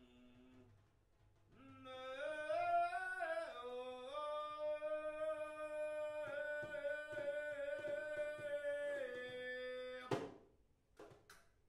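Live improvised music: a single long held note, rich in overtones, that slides upward, holds steady for several seconds, then steps down and stops. Faint tapping sounds run under it, and two sharp drum strikes come near the end.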